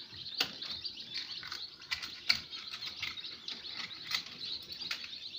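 A crowd of newly hatched chicken chicks peeping continuously in high, short chirps, with a few sharp knocks scattered through it.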